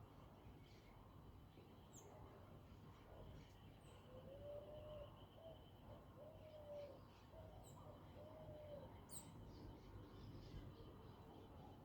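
Faint birdsong under a low outdoor hush: three low, arched calls in the middle, with a few short high chirps from other birds scattered through.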